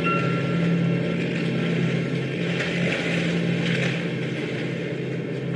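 A boat's engine drones steadily, with rough water churning and splashing around it; the splashing swells for a second or so in the middle.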